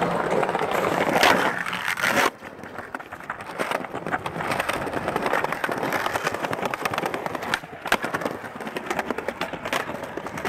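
Skateboard wheels rolling over rough concrete and paving, a steady gritty rumble with small ticks from the seams. There is a sharp clack of the board about eight seconds in, and a louder passage cuts off suddenly about two seconds in.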